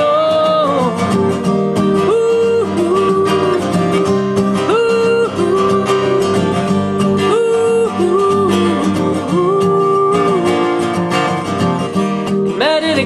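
Country-style acoustic guitar music: an instrumental passage between sung lines, with a melody of held notes and short glides recurring about every two and a half seconds over steady strummed accompaniment.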